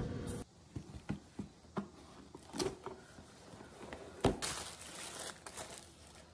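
Hands handling a cardboard box and its paper wrapping while unpacking a ceramic plate: a few light knocks and taps, then a stretch of crinkling paper.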